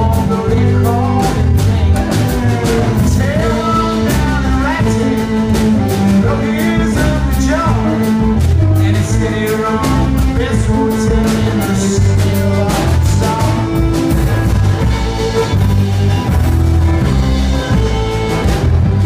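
Live folk-country band playing a song: fiddle, electric guitar, archtop guitar, drum kit and upright double bass, with a man singing lead.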